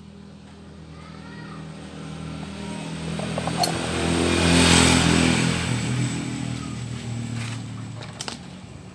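A passing motor vehicle: its engine grows louder to a peak about halfway through, then fades away. A couple of sharp clicks come near the end.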